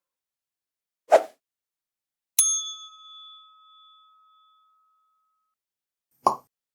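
A bell struck once, a single ding that rings out and fades over about three seconds. It comes between two short, dull sounds, one about a second in and one near the end.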